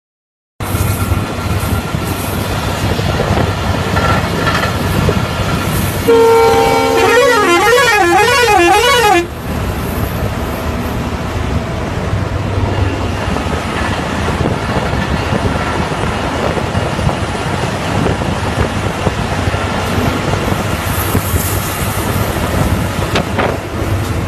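Bus engine and road noise running loud inside the bus cabin at speed. About six seconds in, the bus's horn sounds a steady chord for about a second, then switches to a warbling tone that rises and falls for about two seconds.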